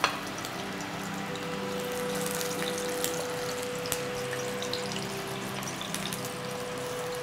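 Spatula and nonstick frying pan as fried stuffed dough sticks are slid out into a ceramic bowl: a sharp knock at the start, then a few light clinks and scrapes over a steady hiss. Soft background music with held notes plays underneath.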